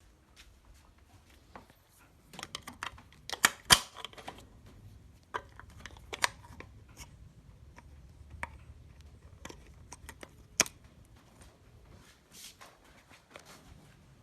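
Hands working with small hard parts, giving scattered clicks, taps and knocks. They cluster a couple of seconds in, and the two loudest knocks come about four and ten and a half seconds in.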